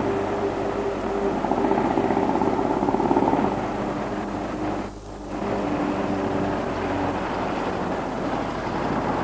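Engines of motorcycles and a car running on the road, a steady mechanical drone that drops out briefly about five seconds in.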